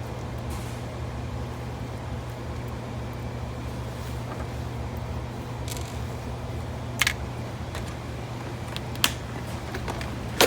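Steady low mechanical hum of room ventilation, with a few light clicks about seven and nine seconds in as small valve parts and tools are handled.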